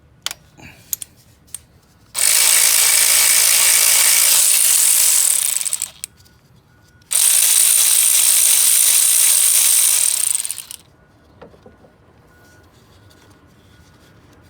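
Cordless power tool running twice, about three and a half seconds each time, as it spins out the two 10 mm bolts on the power steering pump. A few light clicks come first as the socket goes on.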